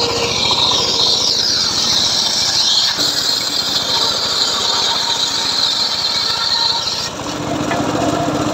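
Engine-driven homemade circular sawmill blade cutting lengthwise through an old teak plank, a loud high whine over the engine's steady low running. The cutting whine breaks off about seven seconds in and starts again near the end.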